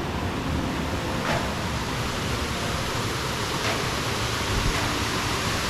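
Man-made waterfall splashing with a steady rushing sound.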